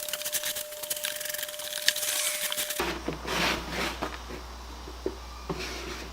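Rapid scratchy scrubbing on the wooden tool box as it is washed out, then, after an abrupt change about three seconds in, slower swishes with a few light wooden knocks.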